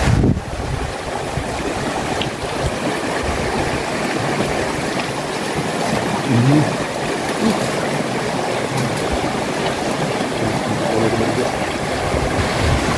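Shallow river running steadily over rocks.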